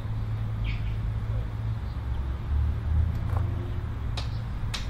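Steady low background rumble at an outdoor range, with a brief faint bird chirp about half a second in and two sharp clicks near the end.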